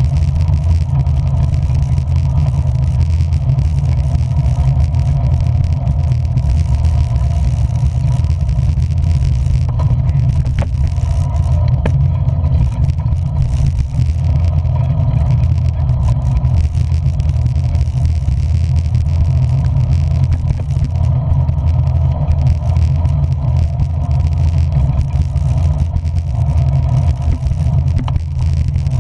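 A vehicle's steady engine and road drone while riding along, heavy in the low end and holding even throughout, without speeding up or stopping.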